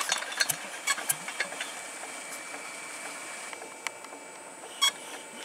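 Irregular metallic clicks and taps from hands working on a stationary Petter single-cylinder diesel engine that is not running. The taps come most often in the first two seconds, with one more near the end.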